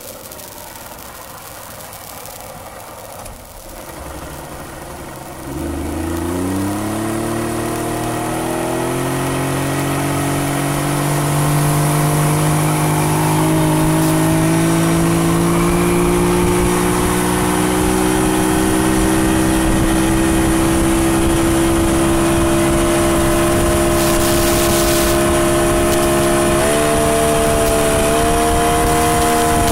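Yamaha 60 hp outboard motor, test-run after timing and air adjustments, opening up about five seconds in: its pitch climbs for several seconds as the boat gets going, then holds steady at speed, stepping up slightly near the end. Wind and water rushing past are heard under the engine.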